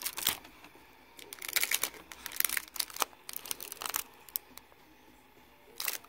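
Crinkling and rustling of plastic film and tape handled on a laptop LCD panel, in short irregular bursts.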